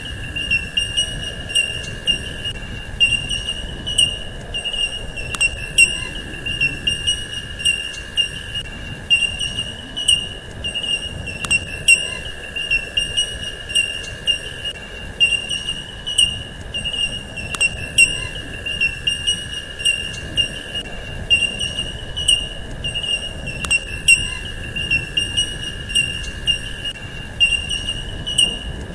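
Steady insect chorus: a high, finely pulsing cricket-like trill over a second steady tone, broken by sharp clicks every second or so.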